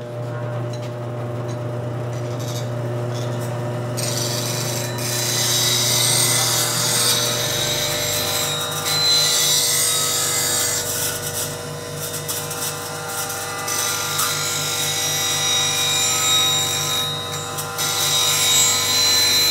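Steel City bench grinder running with a steady motor hum while the top bevel of a steel Boxmaster negative rake scraper is sharpened against the spinning wheel. From about four seconds in there is a loud hissing grind that comes and goes, with a few short breaks.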